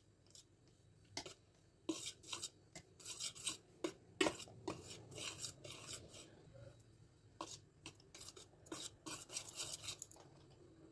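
Metal wire whisk stirring dry wheat flour in a glass bowl, its tines clicking and scraping against the bowl in quick, irregular strokes, with a brief pause past the middle.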